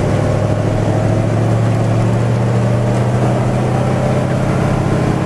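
Truck engine running steadily while driving, a constant low drone heard from inside the cab.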